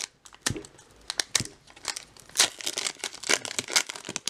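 Foil wrapper of a Pokémon trading card booster pack crinkling and tearing as it is ripped open by hand, in a string of irregular sharp crackles.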